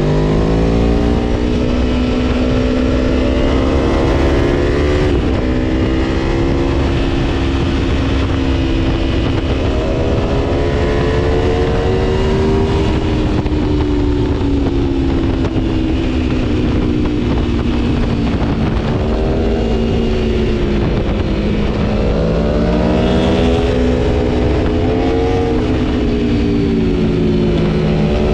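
Aprilia Tuono V4 1100's V4 engine, Gabro Stage 3 tuned, running hard under load. Its pitch climbs as the bike accelerates through the gears, then falls back several times as the throttle rolls off for corners, and climbs again.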